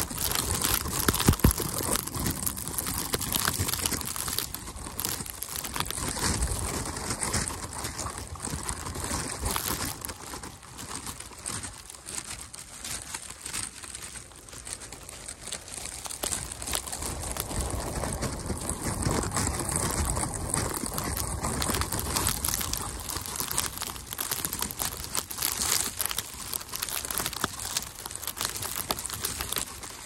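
Footsteps crunching through fresh snow at a walking pace.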